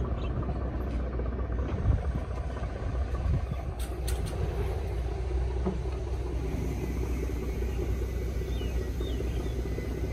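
A steady low rumble with a few short knocks, one about two seconds in and one about four seconds in.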